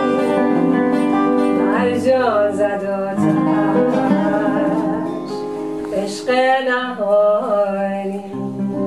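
Background music: a song with a singing voice over instrumental accompaniment.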